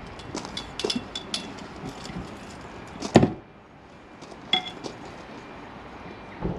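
A motorhome's metal rear roof ladder being slid up and stowed: a run of light metallic clinks and rattles, one loud knock about three seconds in, a few more clicks at around four and a half seconds, and a last knock near the end.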